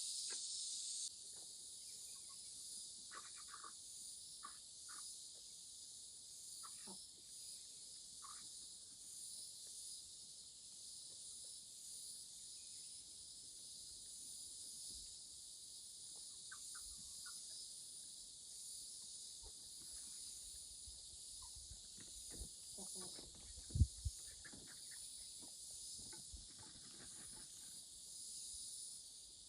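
Steady high-pitched insect chorus, slightly quieter after the first second. Over it come scattered faint knocks and, about 24 seconds in, two sharp thumps.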